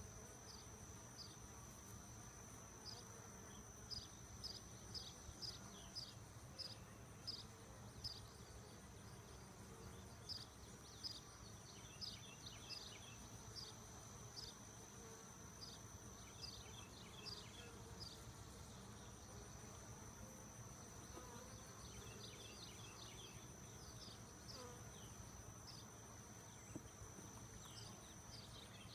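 Honey bees buzzing faintly around an open hive, under a steady, thin, high insect trill. Short, high chirps that fall in pitch come one or two a second through much of it and are the loudest sounds.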